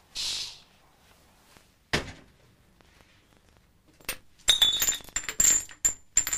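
Empty glass bottles on a carpeted floor clinking and rattling against each other as they are kicked and trodden among, a quick run of clinks with a ringing tone starting about four seconds in. Before that there is a short swish at the start and a single thump about two seconds in.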